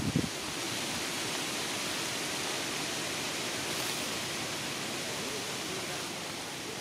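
Steady, even outdoor hiss with no clear pitch, holding level throughout, with a few brief sounds at the very start.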